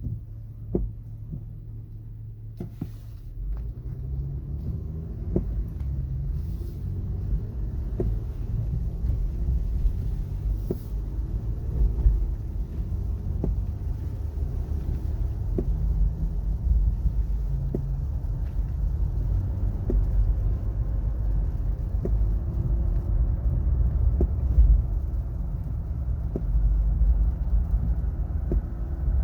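2017 Acura MDX being driven: a steady low road-and-tyre rumble that builds as the car picks up speed, with light knocks every few seconds.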